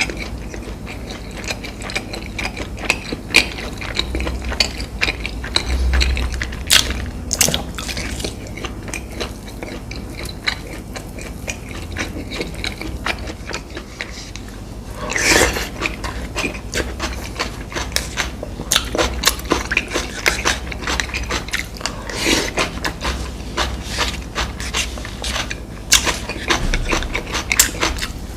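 Close-miked eating of fried fast food: crisp crunching bites and chewing with many small sharp crackles, louder crunches about a quarter, half and three quarters of the way through.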